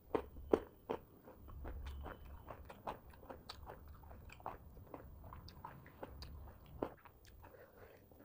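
Close-miked chewing of a mouthful of rice and fried fish: wet mouth clicks and bites, a few sharp ones in the first second, then smaller ones on and off.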